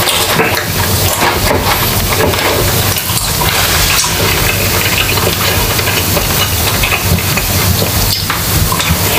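Close-miked eating: chewing and mouth sounds with light spoon clicks, over a steady sizzling hiss.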